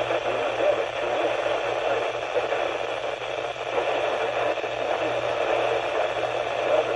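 Steady hiss and static from a weather radio receiver on weak reception, with a low hum underneath.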